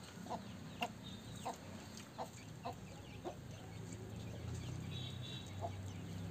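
Domestic chickens clucking in short single notes, roughly one every half second to second, thinning out after about three seconds.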